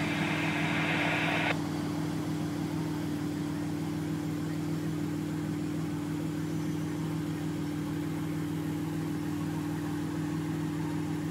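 A vehicle engine idles with a steady low hum. A higher, steady sound cuts off suddenly about a second and a half in.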